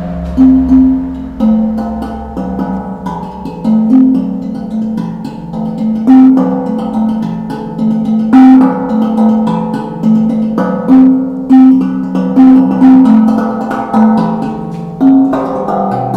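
Tongue drum made from old steel gas cylinders, struck by hand. It plays a repeating melody of low, ringing notes, one or two a second, each note fading after the strike.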